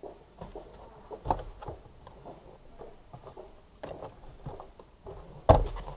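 Irregular knocks and thumps inside a parked car's cabin, with smaller clicks between them; the loudest thump comes near the end.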